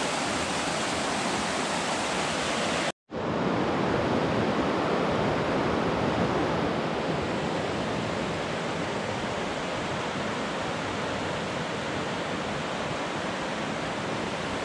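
Rocky river rushing over boulders and shallow rapids: a steady wash of water noise. It cuts out briefly about three seconds in, then carries on the same.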